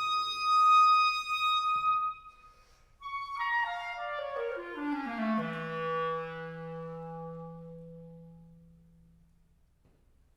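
Band music with a clarinet to the fore. A high held note cuts off after about two seconds. After a short pause comes a run of notes stepping downward, ending on a low held note that slowly fades away.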